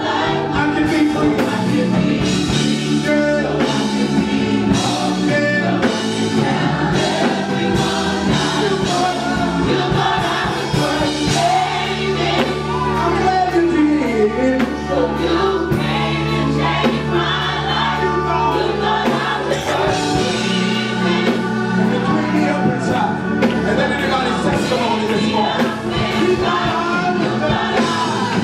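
Live gospel music: a church choir singing over a band with a drum kit beating steadily and a sustained bass line.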